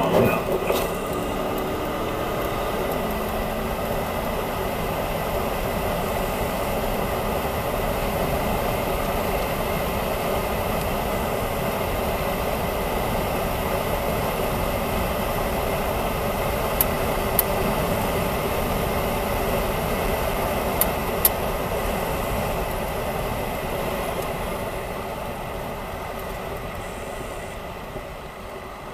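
Patrol car driving, heard from inside the cabin: a steady mix of engine and road noise that eases off over the last few seconds, with a few faint sharp ticks in the middle.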